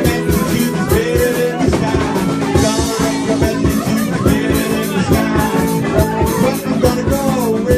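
Background music: a song with singing, guitar and a steady drum beat.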